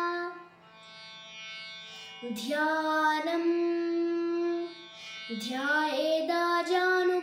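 A young girl chanting a Sanskrit hymn in a sung, melodic voice, holding long notes. A phrase fades out at the start, the word "dhyanam" is sung after a short pause, and another sung line begins about two-thirds of the way through.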